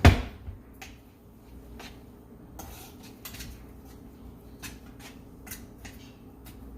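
A spoon stirring homemade barbecue sauce in a bowl, clicking against the side at irregular intervals, after one louder knock at the start.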